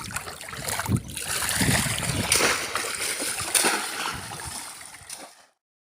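Water splashing and sloshing in shallow flood water, in uneven surges, as boys work a bamboo polo basket trap around a caught fish. It cuts off suddenly near the end.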